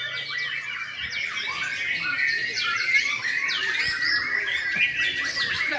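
White-rumped shamas (murai batu) singing, several at once, in a dense unbroken stream of quick overlapping whistles, chirps and trills.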